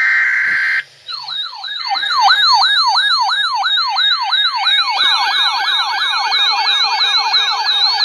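A brief buzzy burst of SAME digital alert-header tones, then a weather alert radio's siren alarm, a yelping tone sweeping up and down about three times a second. About five seconds in, a second, faster siren joins: the warning is setting off a second alert receiver.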